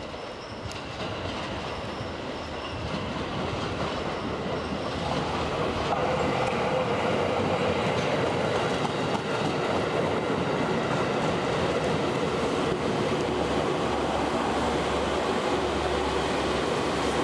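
Seibu 2000 series electric train approaching and running past close by. It grows louder over the first six seconds or so, then holds as a steady rumble as the cars go by, with a low rhythmic clatter from the wheels near the end.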